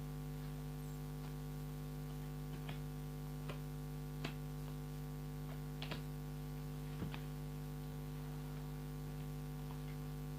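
Steady electrical hum on the recording, with about seven faint, irregular clicks during the first seven seconds.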